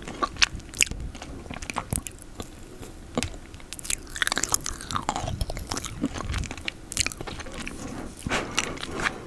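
Close-miked mouth sounds of eating peanut butter: irregular sticky, wet clicks and smacks of lips and tongue, with a longer sliding smack about four to five seconds in.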